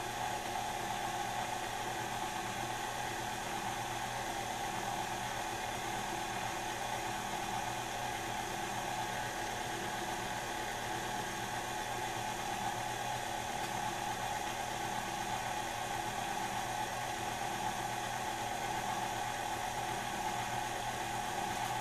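KitchenAid stand mixer running steadily, its flex-edge beater turning through thick brownie batter as the flour is mixed in.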